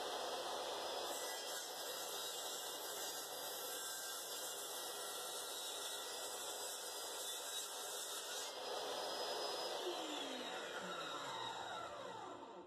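Table saw running at speed while a pine batten is pushed over its half-raised blade, cutting a notch for a half-lap joint, with the hiss of the blade in the wood through most of it. About three-quarters of the way through, the saw is switched off and winds down, its pitch falling until it stops near the end.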